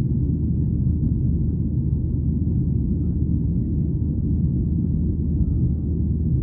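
Steady cabin rumble of a Boeing 737-800 in flight, heard from a seat inside the cabin: the drone of its CFM56-7B turbofans and the rush of air over the fuselage, even and unbroken.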